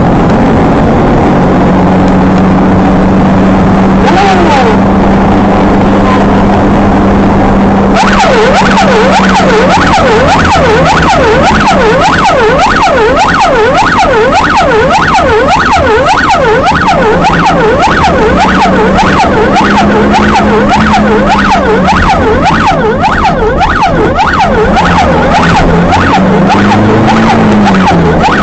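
An emergency vehicle's electronic siren, heard from inside the cab as it drives through traffic. It starts as a slow rising-and-falling wail and about eight seconds in switches to a fast yelp that sweeps up and down continuously.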